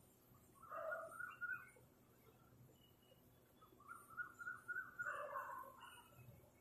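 Faint bird calls from the trees. There are two bursts of quick chattering notes, one about a second in and a longer one from about four to six seconds in, with faint high chirps in between.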